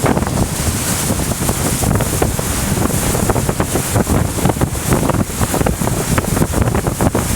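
Wind buffeting the microphone on a motor yacht running at speed, over a steady rush of water along the hull.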